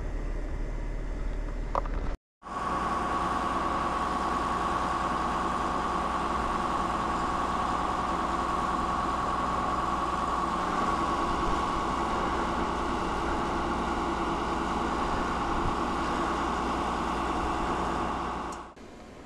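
Exploration drill rig running steadily: an even mechanical drone with a steady whine over it. It starts after a brief dropout about two seconds in and fades out near the end. Before the dropout there is a low rumble.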